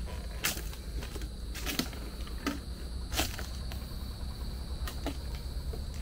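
Footsteps of a person walking, one step roughly every second, over a steady low rumble.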